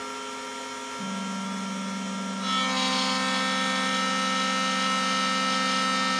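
Shapeoko 3 CNC router's spindle running at 16,000 rpm, its end mill cutting aluminium: a steady whine with cutting noise. A second, lower tone joins about a second in, and the cutting noise gets louder and shriller about two and a half seconds in.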